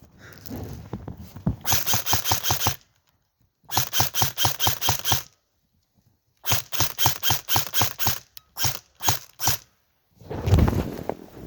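Airsoft rifle firing three full-auto bursts of about a second each, at roughly eight shots a second, then a handful of quick single shots near the end.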